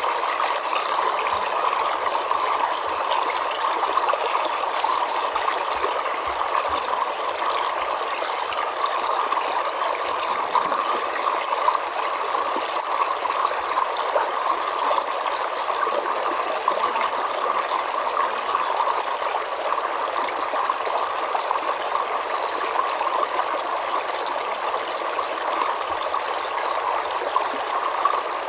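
Forest river flowing over stones: a steady rushing, babbling water sound.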